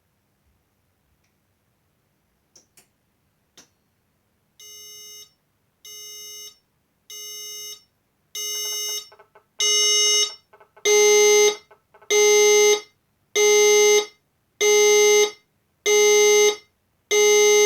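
Fire alarm system going into alarm: a few faint clicks, then a pulsed alert tone, about one beep every 1.2 s. It grows louder over the first six beeps, then holds steady.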